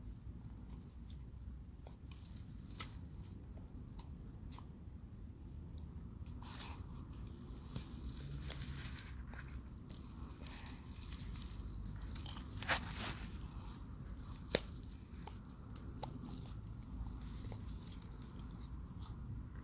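Leopard tortoise (pardalis babcocki) biting and tearing at its food, an irregular run of small crunches and snaps, with two sharper snaps past the middle.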